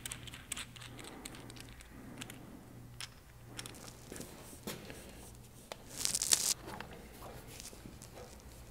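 Hand-handling noises as steel hydraulic fittings and a rubber hose are worked into place on a tractor's loader: scattered small metallic clicks and rustles, with a louder rustle about six seconds in, over a faint low hum.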